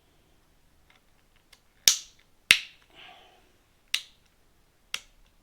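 Sharp plastic clicks from the Harley handlebar switch buttons being worked: four snaps about a second apart, the second one the loudest.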